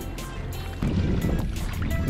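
Background music with a steady beat; about a second in, a low rushing noise rises underneath it.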